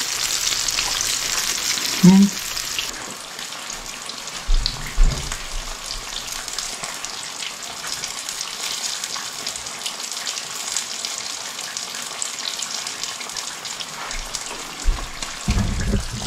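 Crappie chunks deep-frying in hot oil in a cast iron frying pan, a steady sizzle that is stronger for the first few seconds. A short low voice sound about two seconds in, and a few dull thumps.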